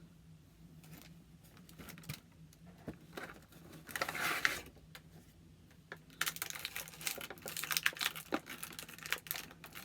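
Plastic packaging crinkling and rustling as a toy is unpacked, with small clicks and taps. There is a short burst about four seconds in, then a longer busy stretch from about six seconds on.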